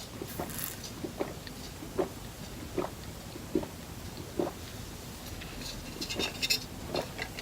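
A person taking a long drink through two straws, swallowing in regular gulps about once every 0.8 seconds, with louder sucking noises near the end.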